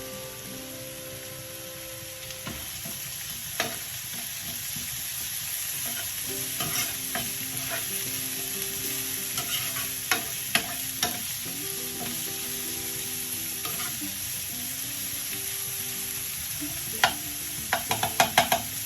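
Chopped vegetables, celery and green chili among them, sizzling in oil in a frying pan as they soften. A utensil stirring them clicks against the pan now and then, with a quick run of knocks near the end.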